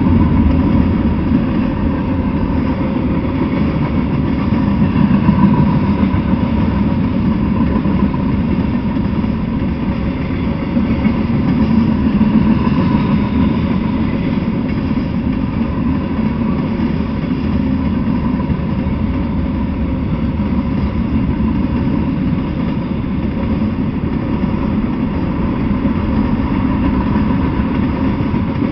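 Freight train rolling past at speed: a steady rumble and clatter of steel wheels on rail as a long string of cars goes by.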